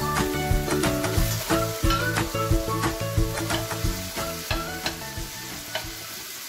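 Chicken pieces sizzling in a soy sauce and syrup glaze in a stainless steel frying pan, with a spatula scraping and knocking against the pan's bottom as the pieces are stirred. Soft background music plays underneath. The scraping thins out near the end.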